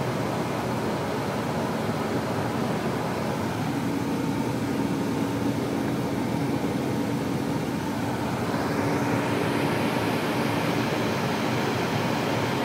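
Steady engine and road noise inside a moving bus cabin. A low hum joins about four seconds in, and the hiss grows brighter in the second half.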